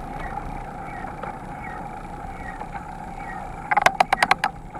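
Mountain bike rolling along a paved road, with steady wind and road noise. Near the end comes a quick run of sharp clicks and rattles.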